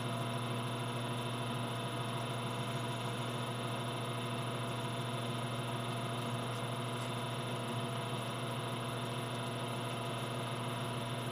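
Monarch Model K engine lathe running at a slow spindle speed: a steady hum from the motor and gearing.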